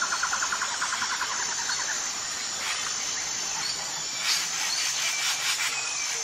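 Nature ambience of insects and birds. A fast trill runs for the first two seconds over a steady high insect whine, and a few short bird chirps come about four and five seconds in.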